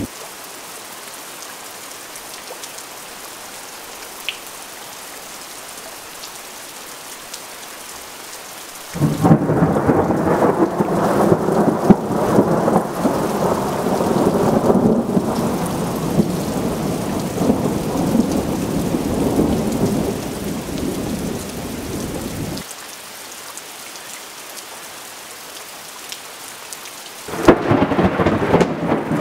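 Steady rain falling during a thunderstorm. About nine seconds in, a long roll of thunder breaks out and rumbles for over ten seconds before fading. Another loud peal of thunder starts near the end.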